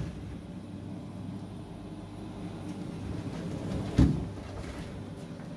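Metal door of a snack vending machine being handled: one sharp thump about four seconds in, over a steady low hum from the machine's refrigeration running.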